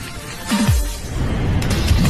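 Electronic background music: a deep bass note slides sharply down about half a second in, followed by a rising swishing sweep.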